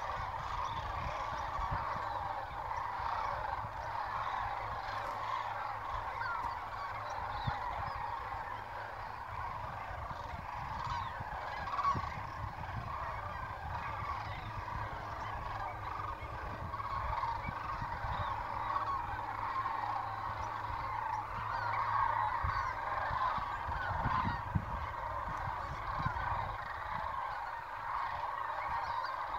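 A large flock of geese honking in a dense, continuous chorus of overlapping calls.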